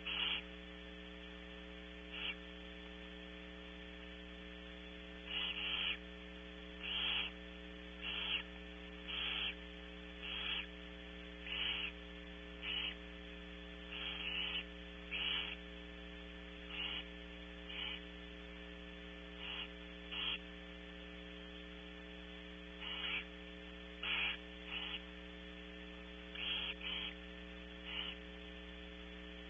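Barn owl nestlings giving short, harsh begging hisses over and over at irregular intervals of about a second, over a steady electrical hum from the nest-box camera's audio.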